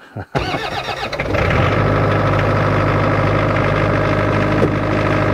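Bobcat 341 mini excavator's diesel engine being started: the starter cranks for about a second, then the engine catches and settles into a steady idle. This is the first start after the hydraulic pump coupler was refitted.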